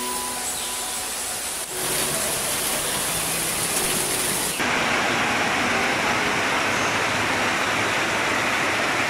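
Steady rain falling on leaves, a constant hiss that grows heavier about halfway in.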